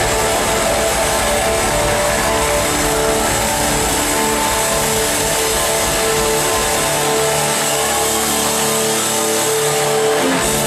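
Live rock band playing loud: electric guitars, bass, organ and drums holding long sustained notes over a wash of cymbals. The deepest bass drops away about seven seconds in.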